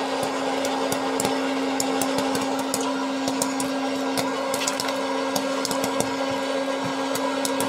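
Hot-air popcorn popper running: its fan motor hums steadily and blows hot air, while corn kernels pop irregularly with sharp pops, several a second.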